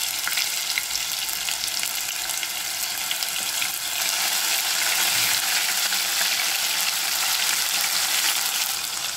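Ginger-garlic paste and whole spices sizzling in hot oil in a pan: a steady hiss with fine crackling. A spatula stirs them through the oil.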